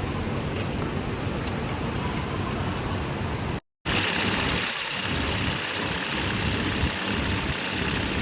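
Industrial sewing machines running with a steady motor hum. The sound cuts out for a moment a little under four seconds in, then the machine noise returns with uneven stops and starts in the low hum.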